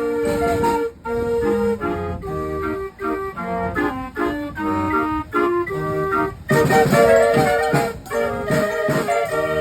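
Vintage organ playing a tune: melody notes changing about twice a second over held notes, swelling louder for a stretch about two-thirds of the way in.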